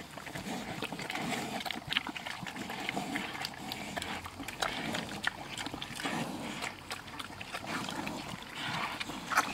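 Two pigs eating wet food scraps and chicken broth from a feed pan: a steady run of irregular wet smacking, slurping and chewing.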